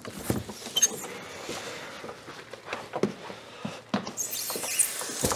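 An old wooden door being unlatched and pulled open, with a few scattered knocks and rattles about a second apart as someone steps through.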